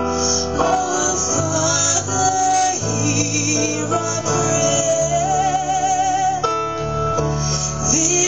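Music: a wavering, singing-like melody line with vibrato over sustained low chords that change every second or two.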